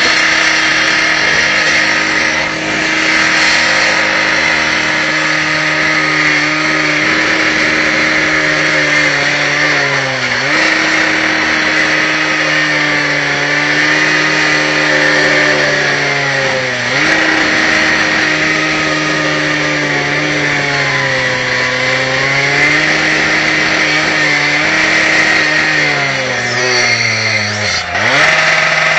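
A power cutting tool running continuously against the brickwork. Its motor note sags slowly under load and snaps back up when it is eased off, three or four times, over a steady hiss.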